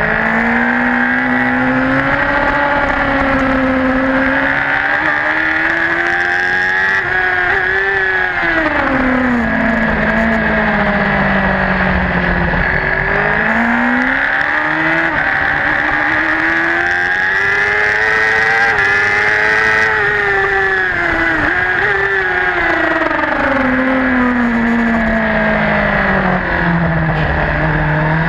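Racing superbike's engine heard from on board at full race pace. The engine note climbs steadily through the revs, drops sharply about eight and thirteen seconds in, then climbs again and falls away slowly near the end, with a constant rush of noise underneath.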